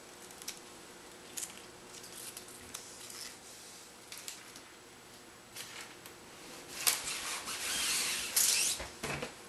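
A Tyvek kite sail and its adhesive tape being handled by hand: scattered light clicks and taps, then a louder crinkling rustle from about seven seconds in that stops just before the end.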